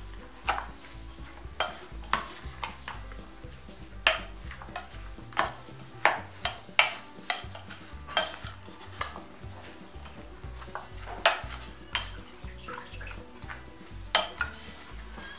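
A plastic spoon stirring a thick yogurt salad in a stainless steel bowl, clacking and scraping against the steel in irregular knocks, about one or two a second.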